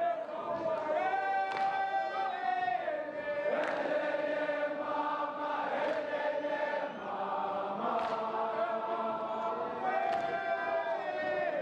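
Large crowd of schoolboys singing gwijo, a South African school chant sung by voices alone, in long held notes that move together in pitch every second or two.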